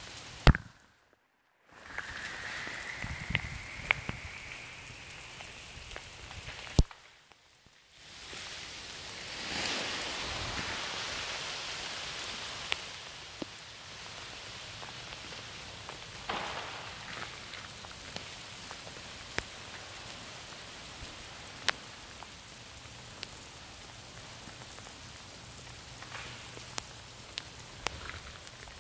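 Freezing rain falling steadily on ice-coated trees and ground: an even hiss with many scattered sharp clicks. The sound briefly drops out twice, about one second in and about seven seconds in.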